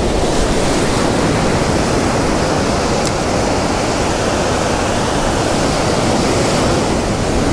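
Ocean surf breaking and washing up the beach around the listener: a steady, loud rush of water with no let-up.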